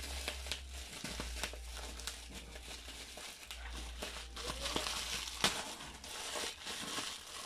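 White plastic shipping pouch crinkling and rustling as it is handled and cut open with scissors, with scattered sharp snips and clicks.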